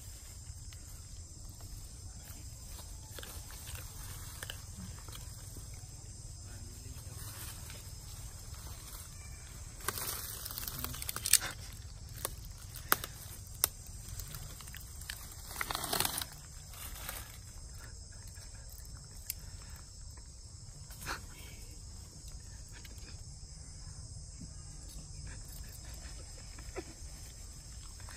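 Forest ambience: a steady insect drone, with a few sharp clicks and short rustling bursts from the monkeys moving about near the middle.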